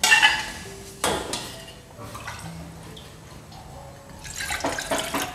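Metal cookware clattering on a gas stove: a sharp knock at the start and another about a second in, then a quick run of clinks and scrapes near the end as a stainless steel saucepan of water is handled at the burner.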